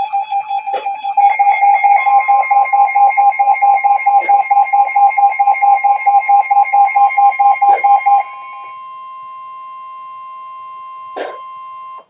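Alert receivers sounding a Severe Thunderstorm Warning alarm: rapid electronic beeping, several beeps a second, with a steady alert tone joining about two seconds in. The beeping stops about eight seconds in and the steady tone goes on alone, with one click near the end before it cuts off.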